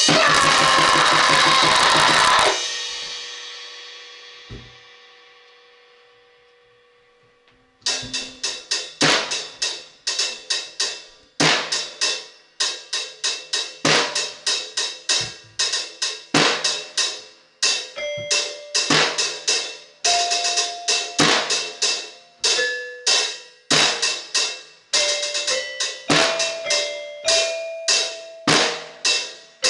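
Drum kit: a loud cymbal-heavy crash lasts about two and a half seconds and rings out, fading over the next five seconds. About eight seconds in, a steady beat of drum and cymbal hits starts up again, and short pitched notes join it in the second half.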